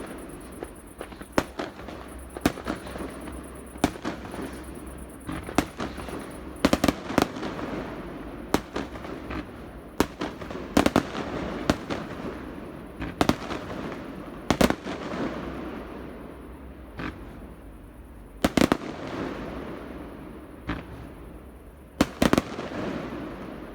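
Fireworks display: a string of sharp shell bangs, some in quick clusters, each trailing off in an echoing crackle over a steady rumble.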